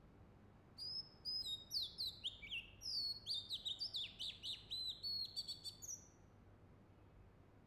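Oriental magpie-robin singing: a quick run of varied whistled notes, many sliding down in pitch, starting about a second in and stopping about six seconds in, over a faint steady background hiss.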